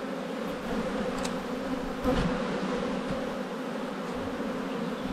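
Honeybees from an opened hive buzzing steadily, a low hum with an overtone. A short knock about two seconds in, with a couple of faint clicks before it, comes from the metal hive tool working against the wooden frames to prise one loose.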